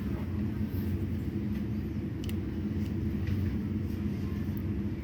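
Steady low mechanical rumble with a constant hum, and a few faint light clicks.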